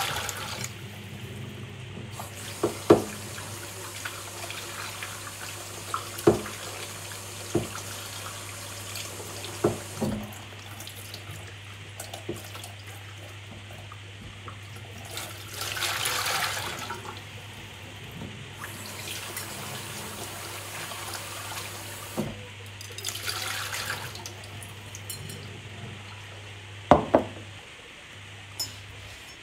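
Kitchen tap running into a sink while ceramic bowls are washed, the water growing louder twice as it strikes the dishes, with sharp knocks of the bowls against the sink now and then.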